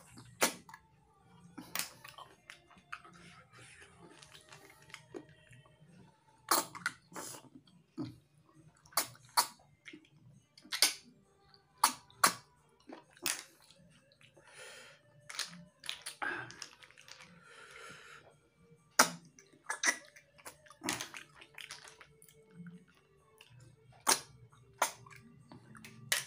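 Close-up mouth sounds of a person eating cooked freshwater snails in sauce, sucking the meat out of the shells: a string of sharp, irregular sucking smacks and lip pops, with slurping and chewing between them.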